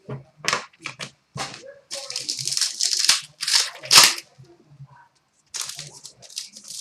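Trading cards and their packaging being handled: a run of short papery scrapes and rustles, a longer rustle about two seconds in, and a sharp, loud crinkle at about four seconds.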